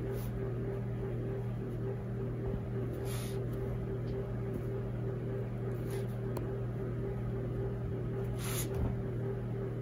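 A steady low hum, with four brief scratches of a pen sketching on paper.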